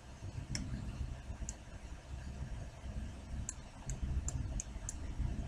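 Scattered clicks from a computer keyboard and mouse, a few at first and then a quicker run of about five in the second half, over a low steady background hum.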